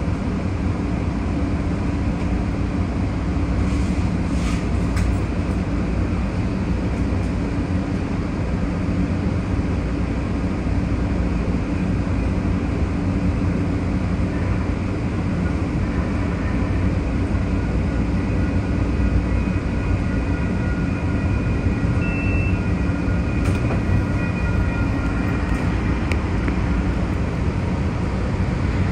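Siemens P2000 light rail vehicle running along the track, heard from inside the operator's cab: a steady running noise of wheels on rails and the car's equipment, with a faint high whine joining in about halfway through.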